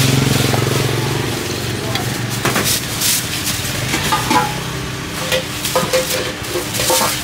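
Metal spoon clicking and tapping against glass bowls and a plastic cup as dessert toppings are scooped, over the hubbub of a busy street-food market. A motor hum fades out in the first second or so.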